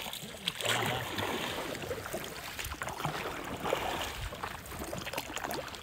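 Hand-made stick paddles with lashed-on blades stroking through lake water beside a homemade canoe, splashing and churning the water in repeated strokes.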